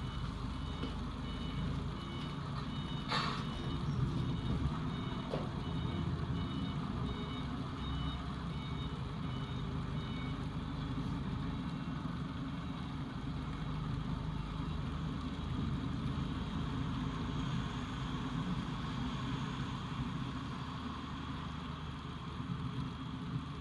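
A vehicle's reversing alarm sounding a steady series of high beeps, stopping about ten seconds in, over a steady low rumble. A single sharp knock about three seconds in.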